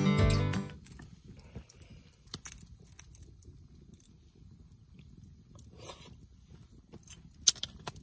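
Acoustic guitar music stops under a second in. After that come quiet chewing and sparse sharp clicks and scrapes of chopsticks picking grilled oyster meat from the shell. The loudest click comes about seven and a half seconds in.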